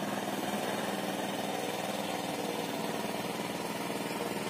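Small engine running steadily at an even speed, a constant drone with no change in pitch.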